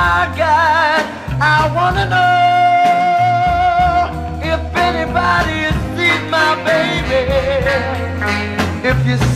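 Blues song playing: a wavering lead melody over bass and a steady beat.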